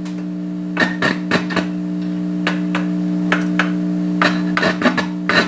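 Kalamazoo Reverb 12 tube amplifier humming steadily through its speaker, with irregular crackles and pops breaking in about a dozen times. The noise is the sign of faulty grounding, which the owner puts down to multiple bad grounds on the chassis.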